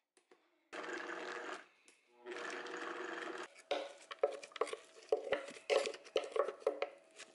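Countertop blender run in two short pulses of about a second each on basil, pine nuts and garlic for pesto. Then a wooden spoon knocks and scrapes irregularly inside the blender jar, pushing the chopped leaves down toward the blades.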